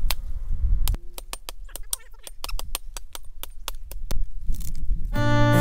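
Hatchet chopping dead wood by hand, a rapid run of sharp, evenly spaced strikes, with wind buffeting the microphone during the first second. Acoustic guitar music comes in near the end.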